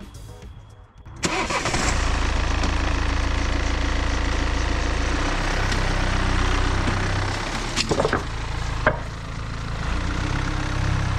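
Mini Clubman's engine starting about a second in and then running steadily: its first start after fresh 10W30 oil has been added. Two short clicks come through near the end.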